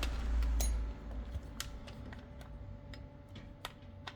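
Irregular light clicks and taps from tools and small parts being handled on a workbench, with a low rumble during the first second.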